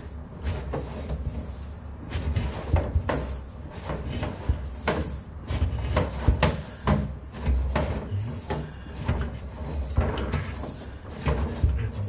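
Irregular knocks and rattles, with a low rumble underneath, as a sewer inspection camera's push cable is fed down a drain line.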